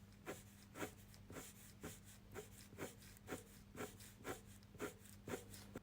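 A 0.4 mm fineliner pen drawing short horizontal strokes on paper, a quick scratch about twice a second at an even pace, over a faint steady hum.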